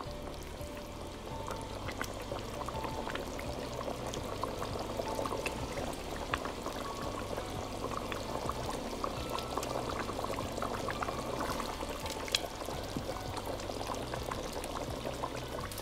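Thick beef curry sauce bubbling at a simmer in a pot, a steady wet bubbling with many small pops, as the liquid from the meat cooks off. Background music with a low bass line plays underneath.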